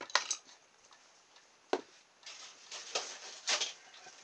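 Small handling noises on a workbench as a cordless drill motor is put down on a cutting mat: a few light clicks, a sharp knock a little under two seconds in, then about a second and a half of rustling and scraping with small clicks.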